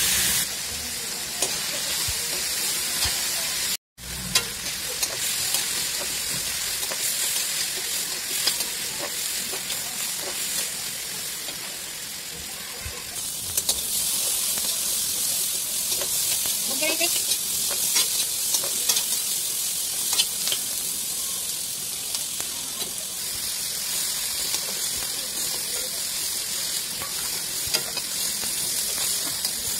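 Chopped onions, tomatoes, garlic and ginger sizzling in oil and butter in a metal kadhai while a spatula stirs and scrapes them against the pan, being fried down until soft. The sound drops out for a moment about four seconds in.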